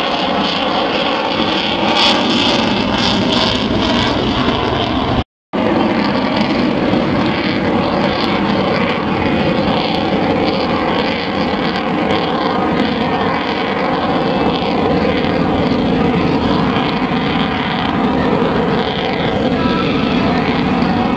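F-22 Raptor's twin F119 afterburning turbofans, heard as loud, steady jet noise while the fighter flies overhead. The sound drops out completely for a moment about five seconds in.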